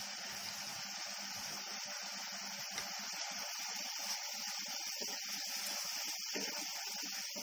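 Onion and garlic paste sizzling steadily as it fries in hot oil in a kadhai, stirred with a wooden spatula through the second half.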